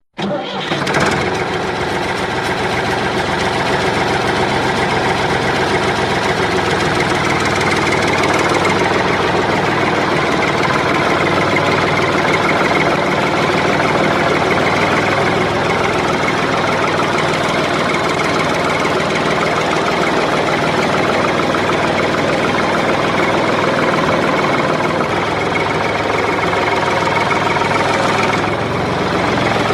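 Heavy diesel engines running steadily, from earth-moving machinery loading soil.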